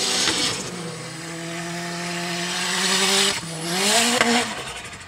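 Toyota 86 drift car's engine held at high revs as the car slides through snow, over a hiss of spinning tyres and spraying snow. About three and a half seconds in the revs dip and then climb again before fading away.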